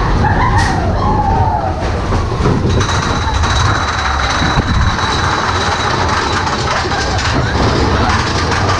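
Big Thunder Mountain Railroad mine-train roller coaster rumbling and clattering along its track, heard onboard. Riders' voices are heard briefly near the start, and a thin high whine sets in about three seconds in.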